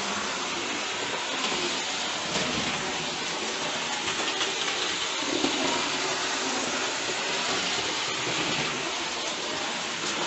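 Hornby OO gauge model locomotive running fast around the layout track: a steady whirring rush from its electric motor and wheels on the rails.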